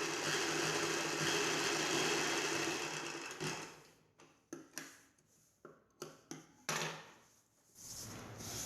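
Sewing machine running steadily, stitching a seam to join the blouse's side seams, stopping about three and a half seconds in. A few short clicks and handling sounds follow.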